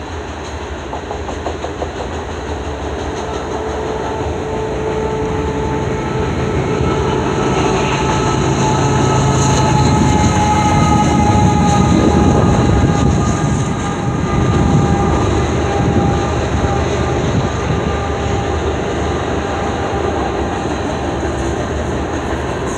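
Freight train passing, with its wheels clicking over the rail joints. Partway through, the mid-train GE ES44AC diesel locomotive goes by: its engine hum and a high whine swell to the loudest point, then ease as autorack cars follow.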